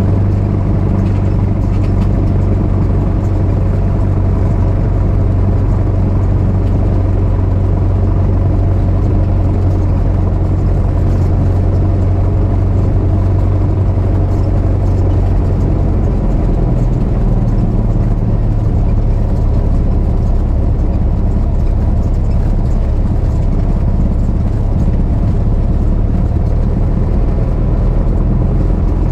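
Cessna 172's piston engine and propeller droning steadily, heard from inside the cockpit; about halfway through the engine note changes, a change in power setting.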